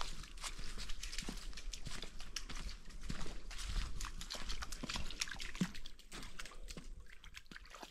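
Footsteps and rustling on a leaf-strewn woodland path and a wooden footbridge: many small crackles and knocks over a low steady rumble.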